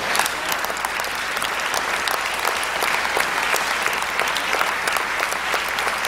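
Studio audience applauding, steady dense clapping throughout.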